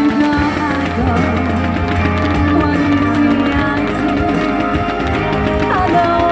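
Music: a wavering melody line over held notes and a steady bass.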